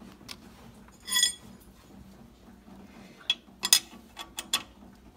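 Metal clinks of a 24 mm combination wrench against a knock sensor's hex on the cast-iron engine block: one ringing clink about a second in, then a quick run of sharp clicks near the end as the wrench is fitted over the sensor to tighten it.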